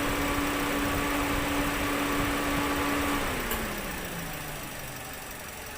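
Toyota Vios 1NR four-cylinder engine idling while it is checked for the misfire behind a P1605 rough-idle code. A steady whine over the idle slides down in pitch and fades from about three seconds in, and the overall sound gets quieter.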